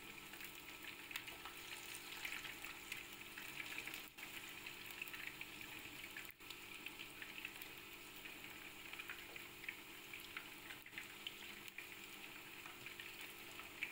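Marinated fish pieces frying in hot oil in a shallow pan: a faint, steady sizzle with fine crackling.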